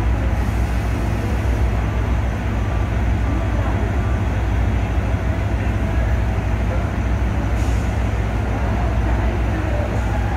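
Steady low rumble of diesel trains idling at a station platform, with faint voices in the background and two brief hisses, one about half a second in and a short one near eight seconds.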